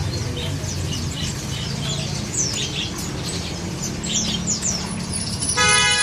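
Many caged songbirds in a bird shop chirping and calling over one another, quick high chirps over a steady low hum. Near the end a loud steady ringing tone starts suddenly.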